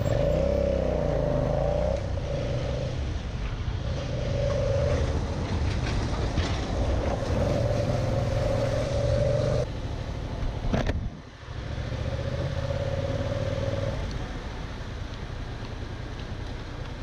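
Yamaha MT-07's parallel-twin engine under way, rising in revs at the start and then pulling in several separate bursts with easings between them. The sound drops out suddenly and briefly about eleven seconds in and runs quieter near the end.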